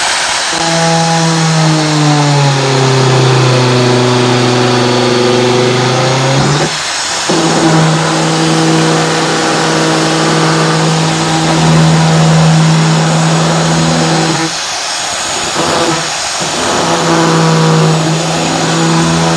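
Angle grinder running and cutting a hole in a plastic water tank, its motor whine sagging in pitch under load in the first few seconds, then holding steady. It stops briefly about seven seconds in and again around fifteen seconds.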